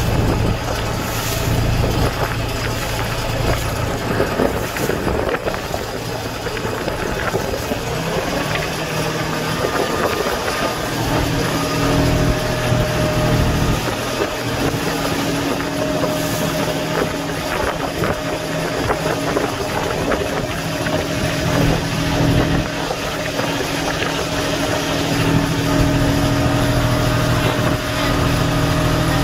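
A boat's diesel engine running steadily over a continuous hiss. About ten seconds in its note turns steadier and more even.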